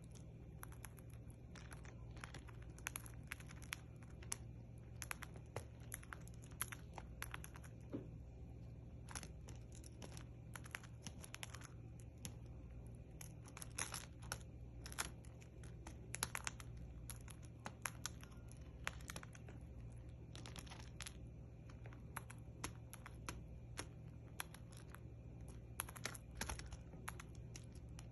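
Cockatiel eating, its beak crunching food in quick, irregular small clicks, several a second, over a faint steady low hum.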